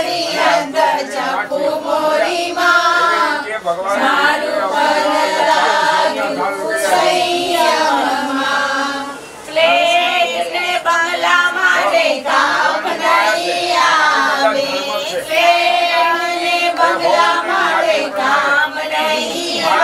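A group of women singing a song together, voices carrying on continuously with a brief dip about nine seconds in.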